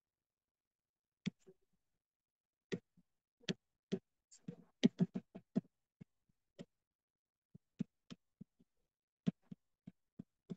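Stylus pen tapping and knocking on a touchscreen while handwriting: a series of short, separate clicks, bunched together near the middle and sparser toward the end.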